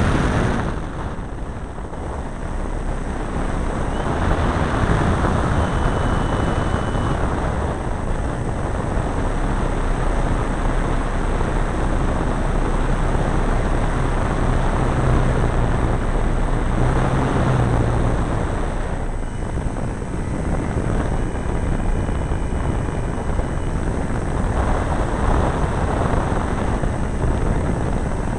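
A large RC model airplane's engine running in flight, recorded from on board and heard under heavy wind rush over the microphone. The sound eases off briefly about two seconds in and builds again, with smaller rises and falls after that.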